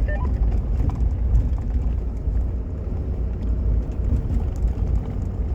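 Steady low road and engine rumble inside a moving vehicle's cabin, with a few light ticks and rattles.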